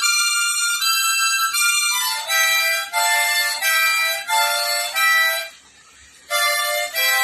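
Harmonica played in chords, each held for about half a second before changing; the chords step down lower about two seconds in, and the playing breaks off briefly before starting again near the end.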